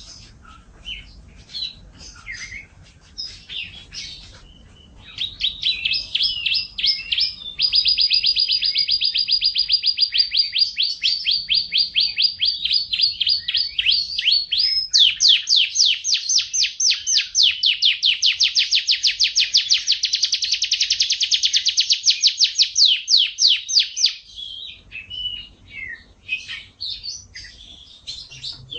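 Domestic canary singing: scattered short chirps, then from about five seconds in long trills of rapidly repeated notes. The fastest and loudest roll comes in the second half, a very quick run of falling notes. About twenty-four seconds in it breaks back into short varied phrases.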